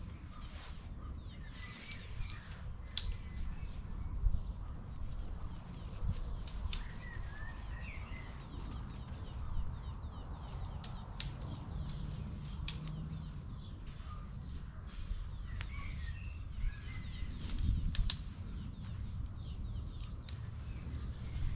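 Lightweight tent being handled: nylon fabric rustling, with many sharp clicks as the inner tent's plastic clips are snapped onto the poles. Birds chirp faintly now and then.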